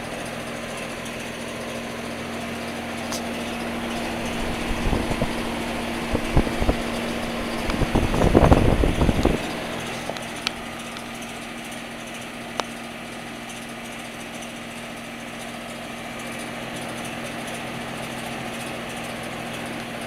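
Trane heat pump outdoor unit running in heat mode: a steady hum from the unit with the whir of its three-blade fan. Near the middle, several seconds of irregular low buffeting on the microphone rise over the hum and then die away.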